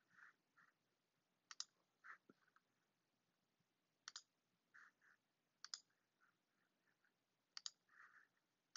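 Faint computer mouse clicks, each a quick press and release, about four in all, with softer short taps between them.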